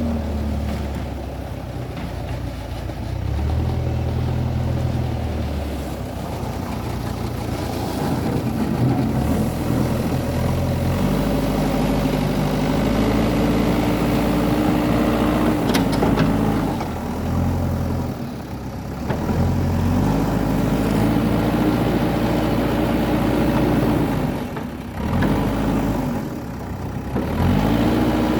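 Diesel engine of a JCB 3DX backhoe loader at work, revving up and holding high revs for several seconds, then dropping back, over and over as it digs.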